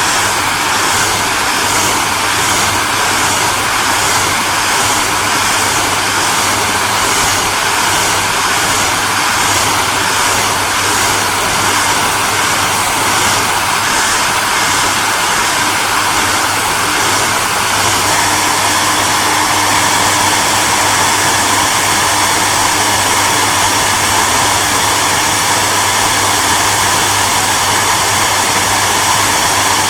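Hair dryer running steadily: an even rush of blown air over a low motor hum. About two-thirds of the way in, the tone changes slightly.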